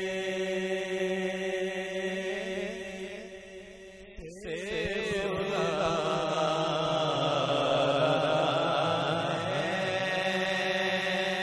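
A man reciting an Urdu naat in a chanted, melismatic style: a long held note, then after a short break about four seconds in, a louder passage of wavering, ornamented melody.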